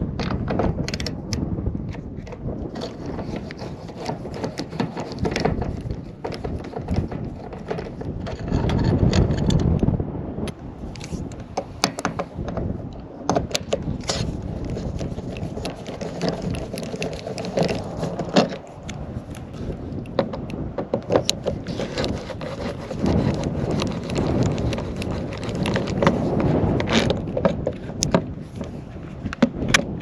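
Hand screwdriver working screws out of a metal solar-panel mounting bracket on a camper roof: irregular clicks, ticks and metal scraping. A low gusty rumble of wind on the microphone runs underneath.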